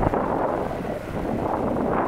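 Boeing 777's jet engines running loud and steady, as at takeoff power, with wind buffeting the microphone. The noise comes in abruptly at the start.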